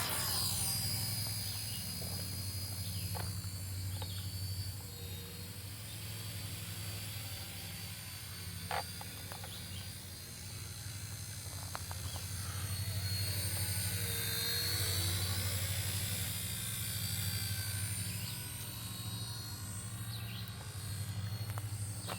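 RC helicopter in flight: a steady rotor chop under a high whine that wavers in pitch and swells and fades as the model moves about.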